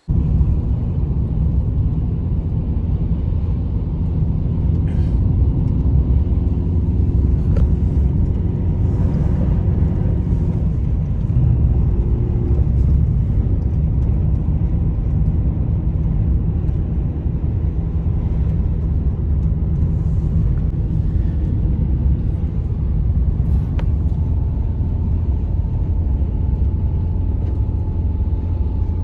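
Strong blizzard wind buffeting the microphone: a loud, steady low rumble.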